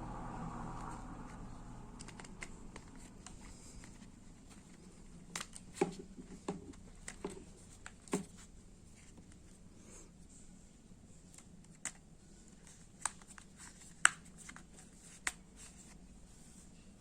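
Scattered sharp clicks and light crinkling from small plastic parts and packaging being handled, with about a dozen separate clicks and the sharpest one a little before the end.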